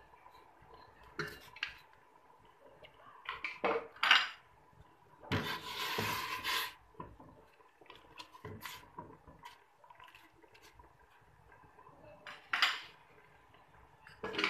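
Metal ladle clinking and knocking against a stainless steel stockpot while stirring the blended spice paste into boiling terung asam soup. The knocks come irregularly, with one longer, louder stretch of noise about five seconds in.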